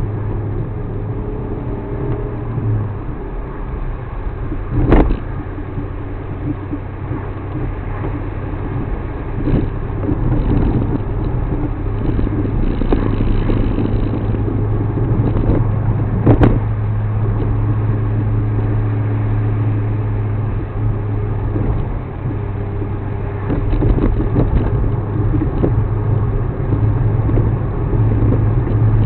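Suzuki Alto Works HA36S car running, its 660 cc turbocharged three-cylinder giving a steady low hum. Two sharp short knocks stand out, one about five seconds in and another around sixteen seconds.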